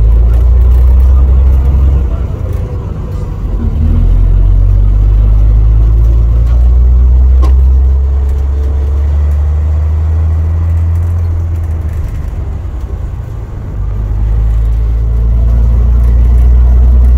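Vintage bus engine running under way, heard from inside the lower saloon: a loud, deep rumble that drops away twice, about two seconds in and again about twelve seconds in, before picking back up.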